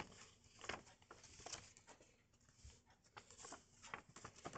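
Paper pocket timetable leaflets rustling and crinkling as they are handled and folded, quiet, with irregular small crackles.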